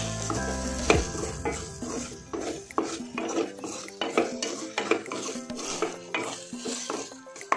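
Wooden spatula stirring and scraping against a stainless steel kadai, about two strokes a second, as beaten egg is broken up into crumbles while it sets.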